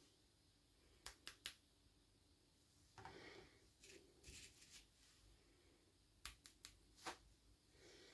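Faint handling of toy packaging: a few quick small clicks, then soft crinkling and rustling, then more clicks.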